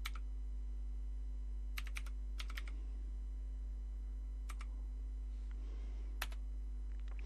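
Commodore VIC-20 keyboard keys being typed: scattered keystrokes, some in quick runs of two or three, over a steady low hum.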